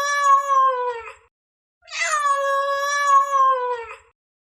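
Domestic cat meowing: a long drawn-out meow ends about a second in, then the same meow comes again, each sagging slightly in pitch at its end.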